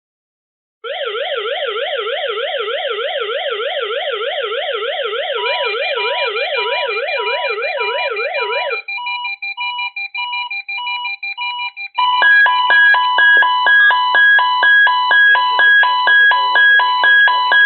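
Several weather radio receivers sounding their alert alarms, set off by the weekly test signal. A fast warbling siren-like tone runs until about nine seconds in, a steady beeping about twice a second joins it partway, and near twelve seconds a louder multi-tone beeping starts.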